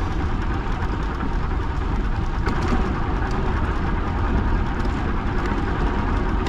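Steady rushing noise of a bicycle ride: wind buffeting the microphone with a deep rumble, and tyres rolling along the path.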